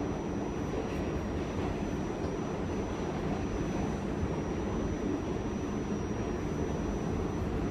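Steady low rumble of a moving passenger train heard from inside the carriage, with a faint high steady whine running through it.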